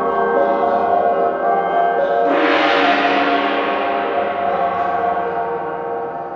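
Sustained ringing drone tones, then a large gong is struck a little over two seconds in, its bright shimmering wash swelling over the drone and dying away slowly, echoing in a large hall.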